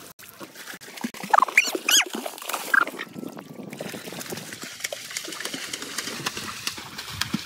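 Water splashing and sloshing as a swimmer kicks through a pool, with a few short, high, squealing voice sounds about a second and a half in.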